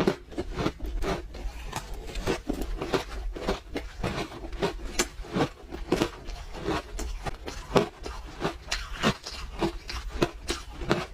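Pink-coloured ice being bitten and chewed up close, a rapid, irregular run of sharp crunches and cracks.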